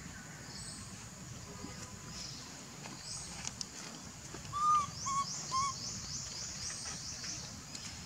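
Birds calling outdoors: three short hooting notes in the middle, over a run of quick, high-pitched chirps and a steady low background hiss.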